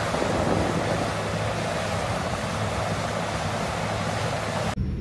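Caterpillar 6015B hydraulic mining excavator working, heard as a steady rushing noise thick with wind on the microphone. It cuts off sharply near the end.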